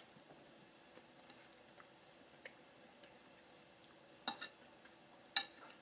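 Metal fork cutting into an omelet and clinking against a plate: a few faint taps, then two sharp clinks about a second apart near the end.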